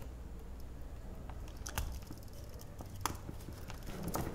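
Small plastic clicks and creaks from a Sony Ericsson T700 phone's front cover being pried off its clips, with a couple of sharper clicks about two and three seconds in.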